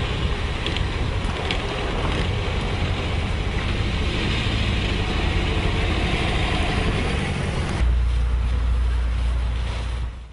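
Toyota car driving up a dirt track, with engine and tyre noise as an even rush. About eight seconds in a heavier low rumble comes in as the car comes close, then the sound cuts off abruptly.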